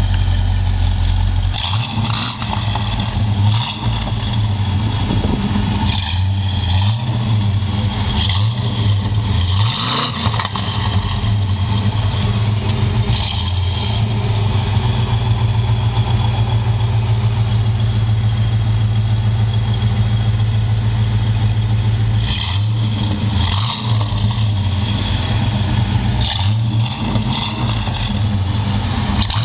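Lincoln Mark VII's 5.0 HO Ford V8 exhaust, through gutted catalytic converters, a Mustang H-pipe and Flowtech Afterburner mufflers, idling with a steady deep note. It is blipped in short revs several times in the first third and again in the last third, with a stretch of plain idle in between.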